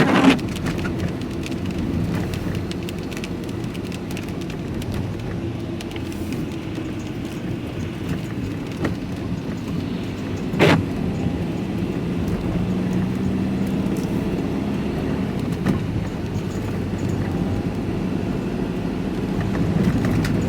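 Steady engine and road noise heard from inside a moving vehicle, with a sharp knock about ten seconds in.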